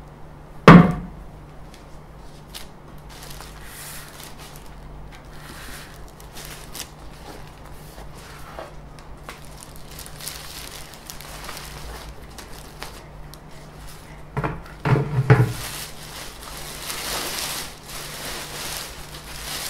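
Clear plastic wrapping crinkling and rustling as it is handled and pulled off a 3D printer, with a single loud thump about a second in and a few knocks a little past two-thirds of the way through.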